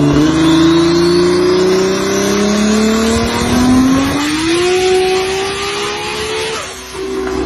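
A high-horsepower car engine on a chassis dyno, revving up through a full-throttle pull, its pitch climbing steadily, with a high whistle rising alongside it for the first few seconds. Near the end the throttle closes, the sound dips and the engine falls back to a lower, steady note.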